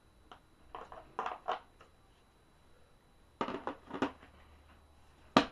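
Hand tools and parts of a plastic tool kit case being handled, with small clusters of clacks and clinks and one sharp click near the end.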